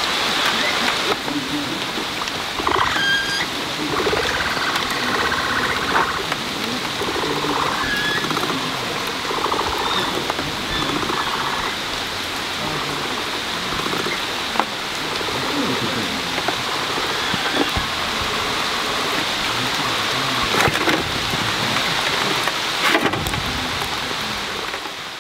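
Steady rain falling on wet concrete and wire fencing, a continuous hiss with a few short high chirps over it.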